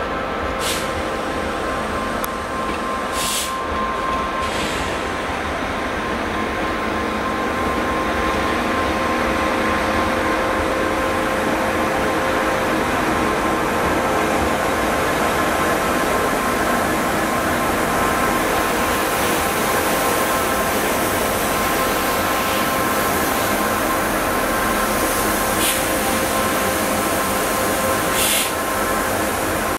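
Class 197 diesel multiple unit running slowly past at close range: a steady whine of several tones over the rumble of the train, growing louder from about eight seconds in as it comes alongside. A few short sharp clicks come near the start and again near the end.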